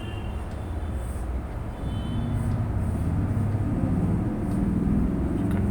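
Low, steady background rumble that swells about two seconds in and holds, with faint thin high tones near the start and again about two and a half seconds in.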